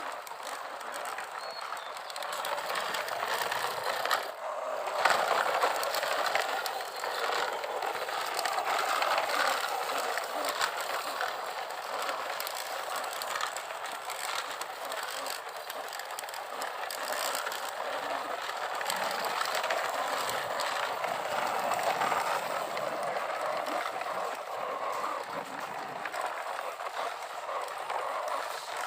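Plastic toy trucks and excavator being played with: a continuous rattling and scraping with many small clicks, dipping briefly about four seconds in.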